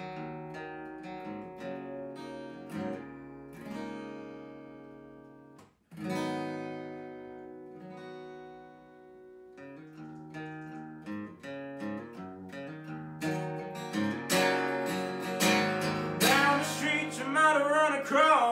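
Gibson acoustic guitar played solo, picked notes and strummed chords; about six seconds in, after a brief gap, a loud chord rings out and fades. The playing builds, and a man's singing voice joins the guitar near the end.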